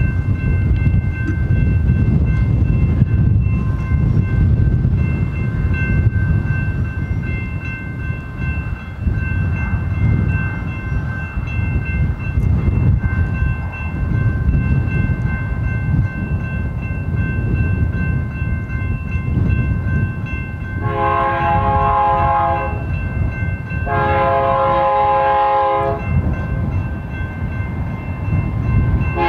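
Steady low rumble of an approaching BNSF double-stack freight train led by a GE C44-9W diesel locomotive, then two long blasts of the locomotive's air horn, a chord of several notes, with a third blast starting at the very end: the horn being sounded for the grade crossing.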